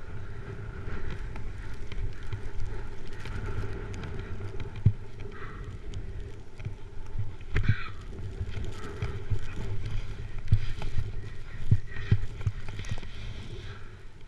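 Snowboard sliding and carving down packed snow: a steady low rumble with scattered thumps from bumps in the snow and a brief scrape of the edge near the middle.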